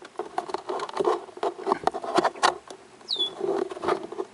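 Fingers working the plastic side tab of a car's glove compartment: an irregular string of small plastic clicks and rubbing, with one short high falling squeak a little past the middle.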